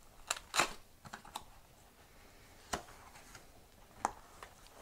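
Cardboard camera box being opened by hand: a scattering of short clicks and taps from the flap and tuck tab, the loudest two close together within the first second and a few more later.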